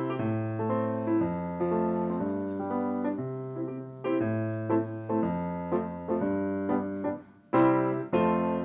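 Grand piano playing a simple tune over chords that change about once a second, harmonised with the three primary chords that can accompany any song. Near the end, after a brief break, louder chords are struck twice.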